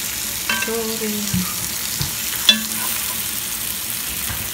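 Sliced onions, green peppers and tomato sizzling in oil in a frying pan as a wooden spatula stirs them, with a few sharp knocks and scrapes of the spatula against the pan. The loudest knock comes about two and a half seconds in.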